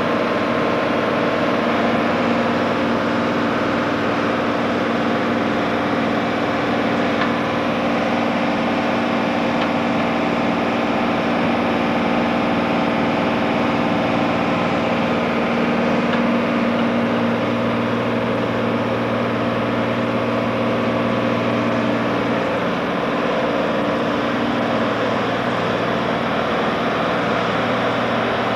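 Tractor engine running steadily at a constant speed, with a deeper hum joining in about two-thirds of the way through.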